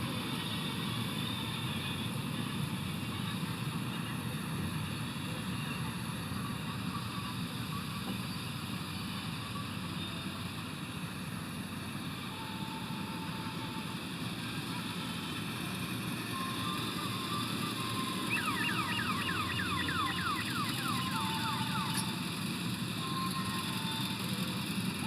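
Heavy farm diesel engine running steadily under load. About three-quarters of the way through comes a quick run of high, falling chirps.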